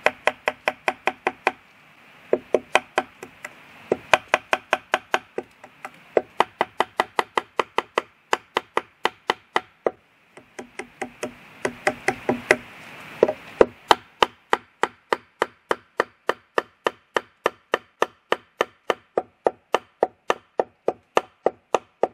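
Rapid runs of sharp, ringing wooden knocks, about four to five a second with short pauses between runs: the back of an axe hammering a wooden peg into the joint between an upright post and a log base, in peg-and-wedge joinery.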